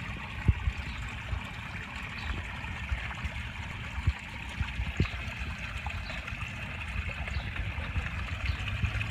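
Steady trickle of running water, with a low rumble underneath. A sharp knock comes about half a second in, and a couple of softer ones follow later.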